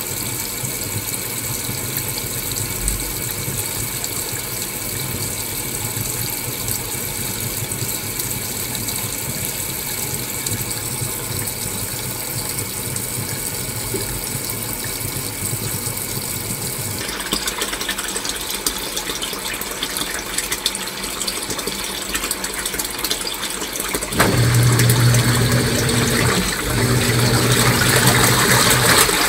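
Washing machine running mid-wash, a steady mechanical whirring with sloshing water. About 24 s in it turns louder, with a strong low hum and rushing water.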